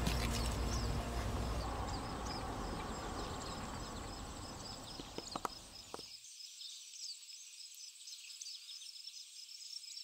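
Crickets chirping in a steady, even pulse. A low background fades out under them and drops away about six seconds in, leaving only the chirping, which grows fainter.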